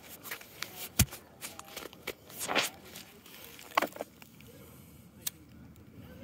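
Consumer fireworks going off: a string of scattered sharp pops and crackles, the loudest about a second in, thinning out after about four seconds.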